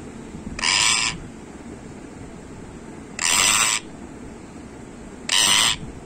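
Rose-ringed parakeet (Indian ringneck) giving three harsh, raspy calls of about half a second each, spaced a couple of seconds apart: an angry, agitated bird.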